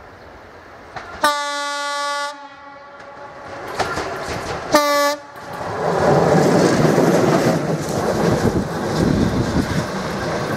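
České dráhy class 230 electric locomotive sounding its horn: one blast of about a second, then a short blast a few seconds later. The locomotive and its train then pass close by with a loud rumble and wheel clatter.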